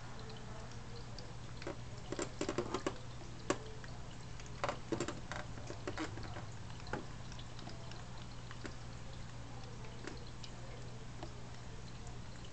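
Small sharp clicks and taps over a steady low hum, in two clusters about two and five seconds in, then a few single ticks.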